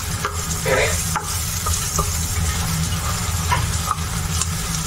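Chopped onions sizzling as they fry in a pan over a high gas flame, while a long-handled spoon stirs and scrapes them around the pan in a few short strokes. A steady low hum runs underneath.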